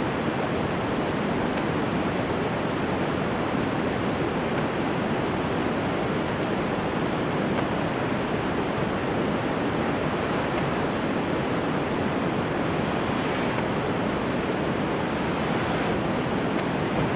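Steady, even hiss of room noise with no distinct knocks or clanks from the pull-up bar.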